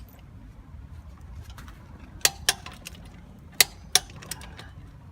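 Click-type torque wrench on a wheel's lug nuts, giving sharp clicks in pairs, twice, in the second half: the wrench breaking over as each nut reaches the set torque.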